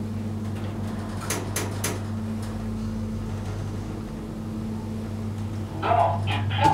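Schindler hydraulic elevator running as the car travels up, with a steady low hum from the pump motor. A few sharp clicks come a little over a second in, and louder clattering comes near the end as the car reaches the landing.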